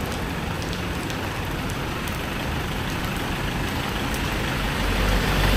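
Rainy street ambience: a steady hiss of rain and wet road with a motor vehicle's engine running close by. Its low rumble grows louder near the end.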